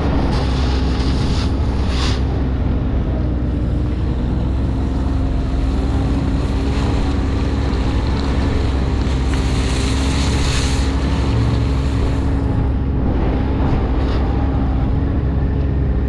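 An engine running steadily at a constant speed, with a rushing noise like wind on the microphone over it.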